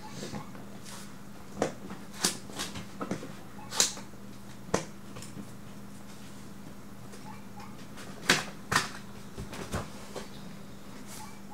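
Cardboard retail box being handled and its Velcro-held front flap opened: a string of irregular clicks, taps and short rustles, over a faint steady hum.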